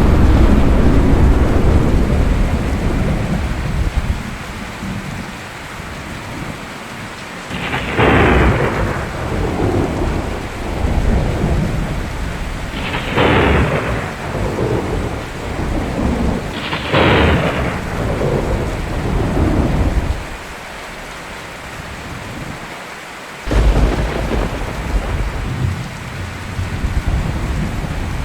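Steady rain with a thunderstorm: a rolling rumble of thunder at the start, then three sharp thunderclaps a few seconds apart, each trailing off into rumble, and another sudden clap near the end.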